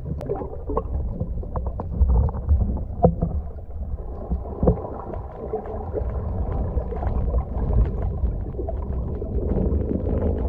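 Underwater sound picked up by a GoPro in its housing: a steady low, muffled water rumble with many small clicks and bubbling crackles scattered throughout.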